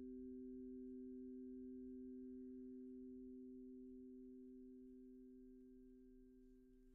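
Faint ringing of a sound-healing instrument: two steady pure tones held together, slowly fading and dying away near the end.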